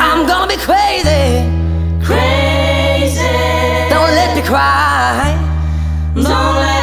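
A song: a sung vocal line of long held and bending notes over sustained bass notes, which change pitch about a second in and again about five seconds in.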